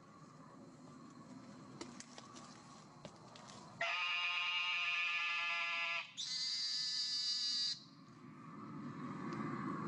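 Western narrow-mouthed toad calling: two long nasal buzzes, the first about four seconds in lasting some two seconds, the second right after it, higher-pitched and about a second and a half long.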